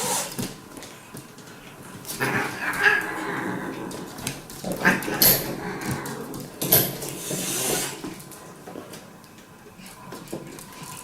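Animal vocalizing in several short noisy bursts, mixed with some voices.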